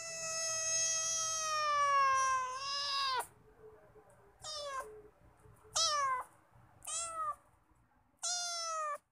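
A cat meowing: one long meow of about three seconds, its pitch sagging slowly and dropping at the end, then four short meows spaced about a second apart.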